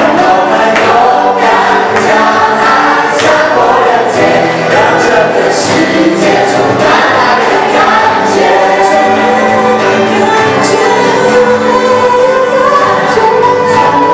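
A group of singers singing a Christian praise song together into handheld microphones, loud and steady throughout.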